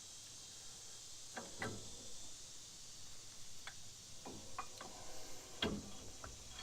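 Scattered light clicks and taps of brake parts and tools being handled, about half a dozen over several seconds, with the sharpest knock about five and a half seconds in.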